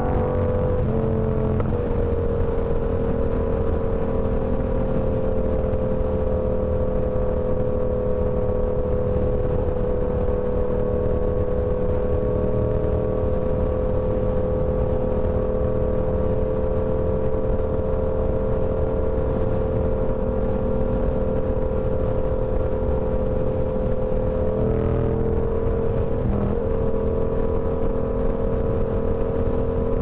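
Yamaha R7's parallel-twin engine through a TOCE full-system exhaust, running under way at a steady pitch, with brief changes in pitch about a second in and again near the end.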